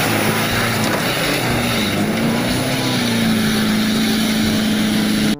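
Water tanker truck's engine labouring as the truck ploughs through deep mud, its note dipping and then rising about two seconds in, over a steady rush of splashing mud and spray. The sound cuts off suddenly near the end.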